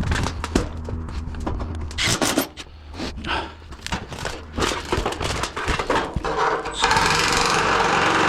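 A run of irregular knocks, taps and scrapes from hand work on metal roofing panels. About seven seconds in, a loud steady rushing noise starts.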